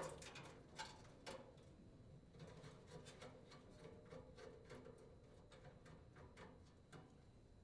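Faint, irregular metal clicks and ticks of a 1/4-inch nut driver turning the screws that hold a thermal fuse to a gas dryer's burner tube.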